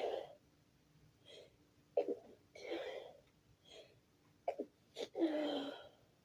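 A person in a sneezing fit, letting out stifled sneezes with a voiced "achoo". There are sharp sneeze catches about two seconds in and twice more around four and a half to five seconds, each followed by a drawn-out voiced sound with short breaths in between.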